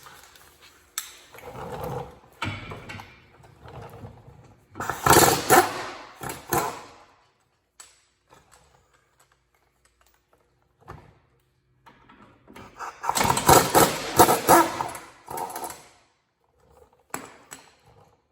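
Impact wrench hammering loose the two 19 mm brake caliper bolts in two bursts of rapid impacts, the second one longer. Lighter knocks and handling noises come before and between the bursts.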